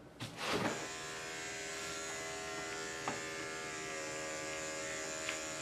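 Electric pet grooming clipper starting up with a brief surge just after the start, then running steadily with a buzzing hum as it is worked through the schnauzer's tangled, matted coat.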